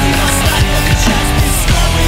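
Loud heavy rock music: distorted electric guitars over bass and drums, with repeated kick drum hits and cymbal crashes.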